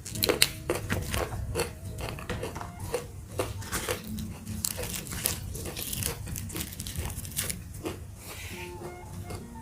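A person biting and chewing crunchy food close to the microphone, with irregular crisp crunches a few times a second.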